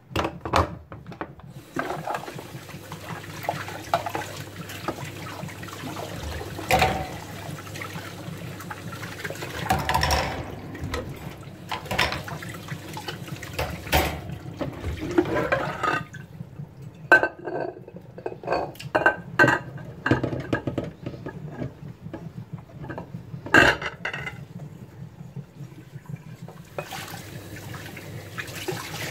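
Dishes being washed by hand under a running kitchen tap: water streams and splashes into a steel sink, with repeated clinks and knocks of bowls and utensils against each other and the sink, most frequent in the later part.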